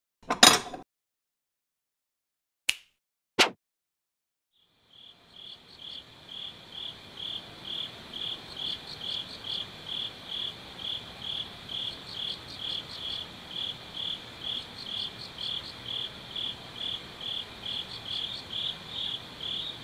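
Crickets chirping steadily, about two chirps a second over a low hiss, beginning about five seconds in. Before them, a short loud scrape near the start and two sharp clicks under a second apart.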